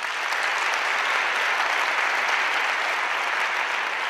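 Audience applauding, a dense steady clapping that holds through and begins to fade only after it.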